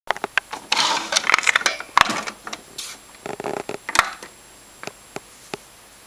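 Keurig coffee maker being loaded with a hot cocoa K-cup. Crackling and plastic clicks come first, then sharp knocks about two and four seconds in as the lid is shut down on the pod, and a few light clicks follow.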